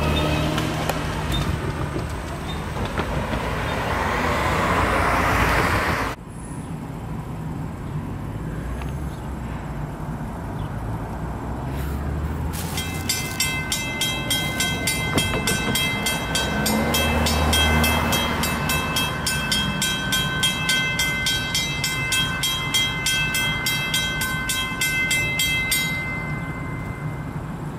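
A train rumbling over a grade crossing, cut off abruptly about six seconds in. Then a railroad crossing warning bell starts ringing in a fast, even rhythm and stops shortly before the end.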